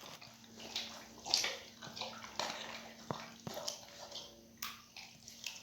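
A pet eating, with wet chewing and smacking sounds about two a second and an occasional sharp click.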